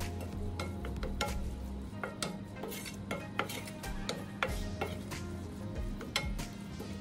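Wooden spoon stirring minced beef in a stainless steel frying pan, with irregular clicks and scrapes of the spoon against the pan over the sizzle of the frying meat as the spice mix is worked in.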